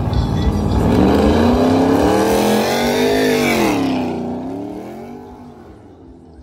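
Drag-racing car engine at full throttle down the quarter-mile strip, its note climbing steadily. About four seconds in the pitch drops sharply, then the sound fades away into the distance.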